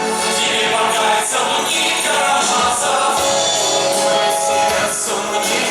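Rock-opera music: a choir singing sustained chords over the band and orchestral backing.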